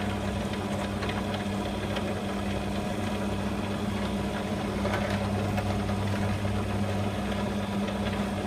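Electric drill running with a steady hum while a pin hole is drilled through a knife handle.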